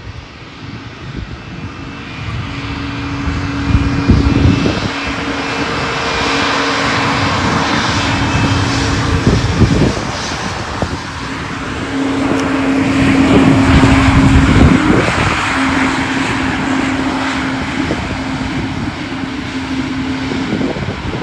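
Airbus A220-300's Pratt & Whitney PW1500G geared turbofans at taxi power as the jet rolls past: a steady hiss over a held low drone, swelling to its loudest a little past halfway through and easing off as it turns away.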